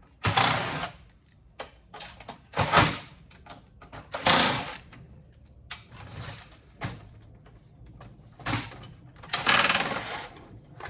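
A DVD drive being handled and pried apart: several short scraping, rattling noises of metal and plastic parts, with small clicks between them.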